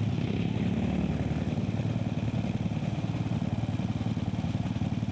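Racing lawn mowers' small petrol engines running hard, a steady fast engine beat throughout.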